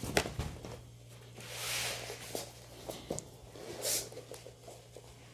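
Stiff taffeta fabric rustling and swishing as a large cut piece is unfolded and spread out by hand. There are a few light clicks and taps at the start and two longer swishes, the louder one about a second and a half in and another near four seconds.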